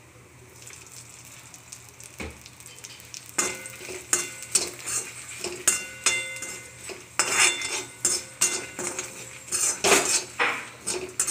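Perforated steel ladle scraping and clanking around a metal kadai, stirring grated coconut and dried red chillies as they roast. After a quiet start it turns into repeated strokes from about three seconds in, with the pan ringing.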